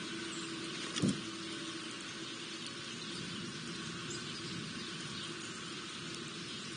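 Steady background noise with a low, even hum, and one short knock about a second in.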